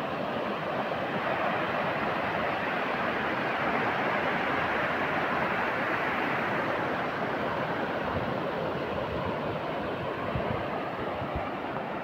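Shallow rocky river rushing over rapids: a steady noise of white water, with a few low wind thumps on the microphone near the end.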